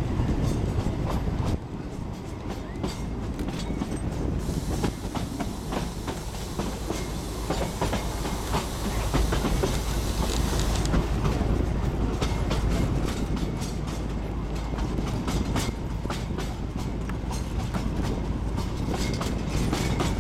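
Darjeeling Himalayan Railway narrow-gauge train running, heard from aboard: a steady rumble with the wheels clicking and clacking over the rails. A hiss joins in for several seconds in the middle.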